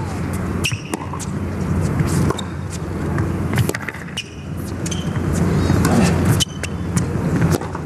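Tennis rally on a hard court: sharp racket strikes on the ball about every second and a half, over a steady low background hum.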